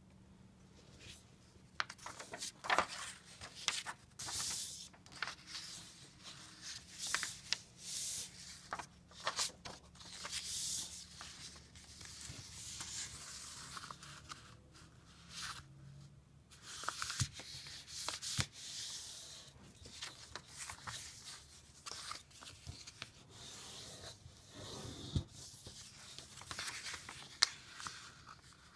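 A sheet of white paper being folded and creased by hand on a table. Irregular rustling and scraping as it slides and flexes, with sharp crinkles when folds are pressed flat and fingers run along the creases.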